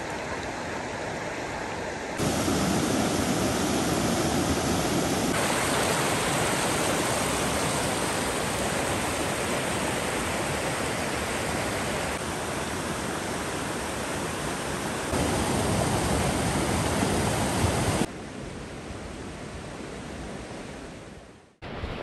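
A small rocky creek rushing over stones and riffles: a steady rush of water that jumps abruptly up or down in level several times, and is quieter for the last few seconds.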